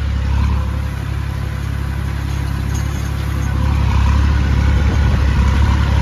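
Massey Ferguson tractor's diesel engine running steadily under load from the driver's seat, pulling a cultivator deep through the soil in high-range first gear. It grows a little louder about four seconds in.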